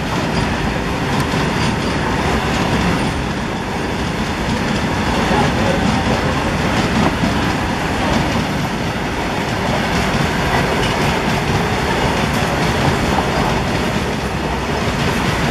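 A rake of BCNA covered freight wagons rolling past at speed on the next track, running through the station without stopping: a steady, loud rumble of wheels on the rails.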